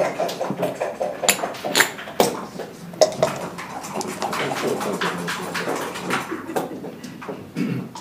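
Backgammon dice rolled onto the board and checkers moved by hand: a scatter of sharp clicks and clacks, over a murmur of voices in the room.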